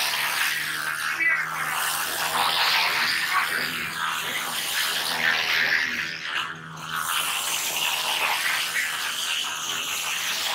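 Crowd of spectators shouting and cheering all at once, many voices blended together, over a faint steady low hum.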